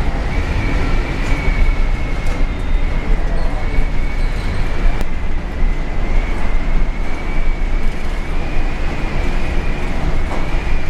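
Storm wind and heavy seas around a cargo ship: a loud, steady deep rumble and rushing noise, with a thin wavering whistle of wind.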